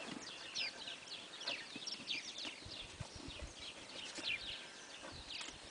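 Small birds chirping over and over with short, falling chirps, with a few soft low thuds in the middle from a saddled horse's hooves as it walks on sand.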